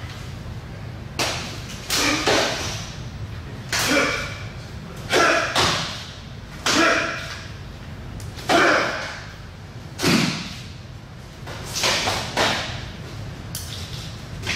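Sharp slaps and thuds of open-hand and fist strikes landing on a training partner during a kenpo striking combination. About a dozen hits come at an uneven pace, some in quick pairs, each echoing briefly in the hall.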